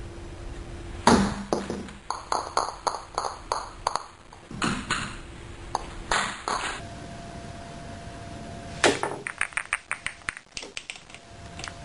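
Pool balls in a machine gun masse shot: a sharp cue-tip strike on the cue ball from a near-vertical stroke, then a quick rattle of ball clicks, about six a second, as the spinning cue ball knocks back and forth against the row of balls. The strike and rattle come twice, the second beginning about nine seconds in.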